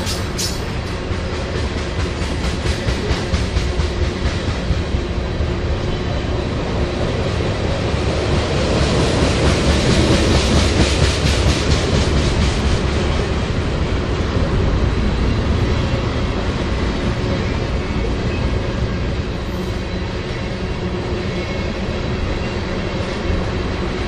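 Tank cars of a freight train rolling past, a steady rumble with the rhythmic clack of wheels over the rail, swelling in loudness about ten seconds in.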